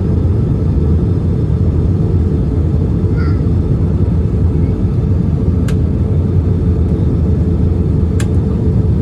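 Steady low drone of an Airbus A320's engines and airflow heard inside the passenger cabin. Two short clicks come late on.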